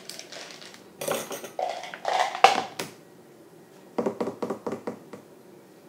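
Kitchen items being handled on a counter: bursts of rustling and clattering, a sharp clack about two and a half seconds in, and a quick run of clicks around four seconds in.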